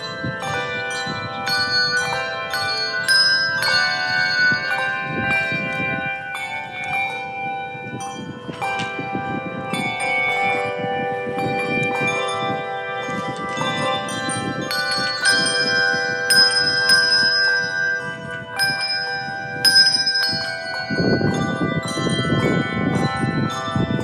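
Bells ringing in many different pitches, struck one after another every fraction of a second, each note ringing on and overlapping the next.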